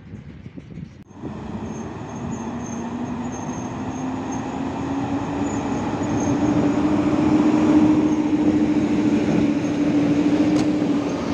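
PKP Intercity EU07 electric locomotive passing close by at speed, its loud running noise carrying a steady low hum that rises slightly in pitch. A faint high squeal, likely from the wheels, comes and goes in the first half, and there is a sharp click near the end. The first second is quieter rumble from a container freight train on a far track.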